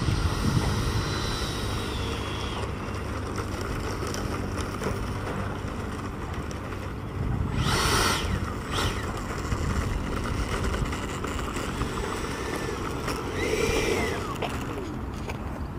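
Electric ducted fan of an 80mm RC sport jet (12-blade Galaxy X-8 fan, brushless inrunner motor) as the jet taxis on the ground. A high fan whine at first fades away after a couple of seconds. Short throttle bursts give a rushing whoosh about halfway through and again near the end, over a steady low rumble.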